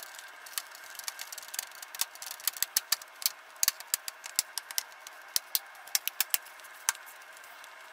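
Plastic screen bezel of a CyberPower Fangbook III HX6-146 laptop snapping back onto the lid: many sharp, irregular clicks as its clips are pressed into place around the edges, over a faint steady hum.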